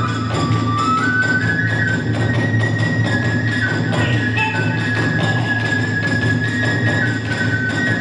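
Kagura accompaniment: a high transverse flute playing a melody of held notes that step up and down, over steady, driving drum and percussion strokes.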